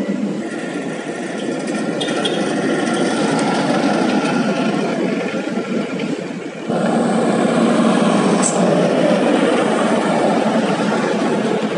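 Road traffic on a gravelly haul road: a dump truck's engine fading into the distance, then a pickup truck's engine and tyres passing close by. The sound steps up abruptly in loudness about seven seconds in.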